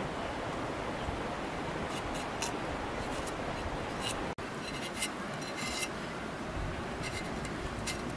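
A large knife blade shaving thin slices off a peeled daikon radish: short, sharp scraping strokes every half second to a second, over a steady background hiss.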